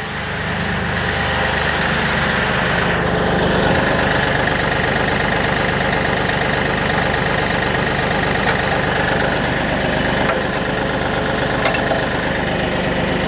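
Kioti DK series tractor's diesel engine running steadily, powering the backhoe's hydraulics, with a few sharp clicks near the end.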